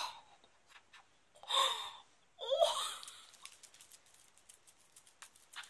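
A woman laughing breathily in two short bursts, the second with a brief rising squeal, followed by a few faint clicks.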